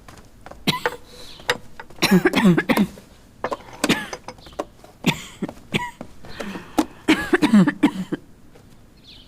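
A woman coughing hard in repeated fits, the longest about two seconds in and about seven seconds in: the cough of lung consumption (tuberculosis).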